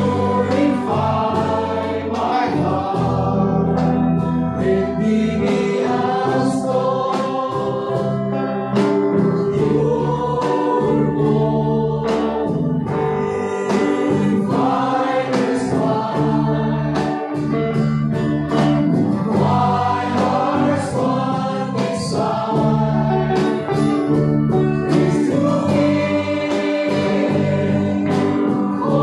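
Live praise and worship band playing a gospel song: voices singing over electric and acoustic guitars, keyboard and percussion, with a steady beat.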